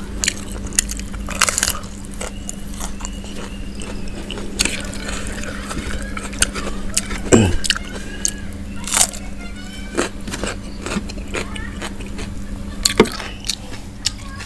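Close-up eating sounds: a person biting, crunching and chewing fried chicken with rice and sambal, with many short wet clicks and smacks scattered throughout. A steady low hum runs underneath.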